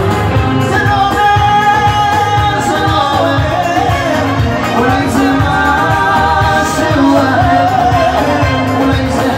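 A man singing live into a handheld microphone through the club's sound system, over a loud Israeli Mizrahi pop backing track with a pulsing bass beat.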